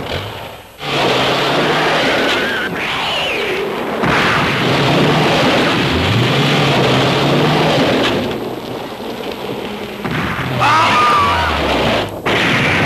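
Loud, dense rumbling and roaring, with low droning tones that rise in pitch several times. It breaks off briefly just under a second in and again near the end.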